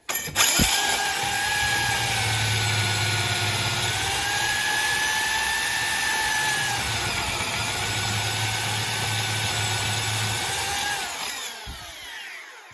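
Power drill driving a diamond core bit through dense brick: it starts up, runs steadily for about eleven seconds with its whine sagging and recovering slightly under load, then winds down near the end.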